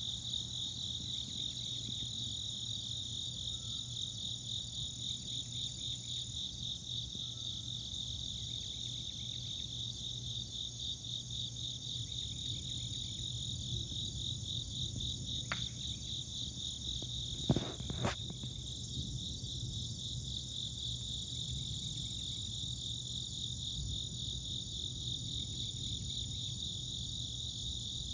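Steady chorus of insects outdoors at dawn, a continuous high, finely pulsing trill, over a low steady hum. A couple of sharp clicks about two-thirds of the way through are the loudest sounds.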